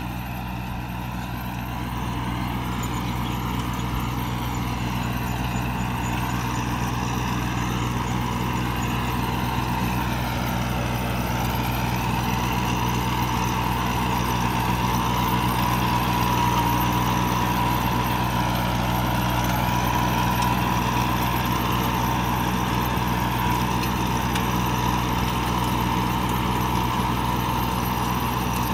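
Kubota A211N compact tractor's diesel engine running steadily under load while it pulls a disc plough through dry soil, with a steady high whine alongside the engine note. It grows a little louder about two seconds in.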